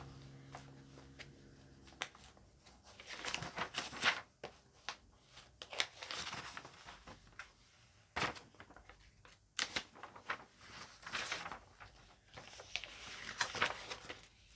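Products and packaging being handled: irregular crinkling and rustling with scattered light knocks. A steady low hum runs underneath and stops about two seconds in.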